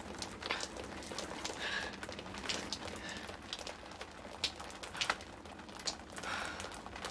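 Faint, irregular clicks and taps over a low steady hiss.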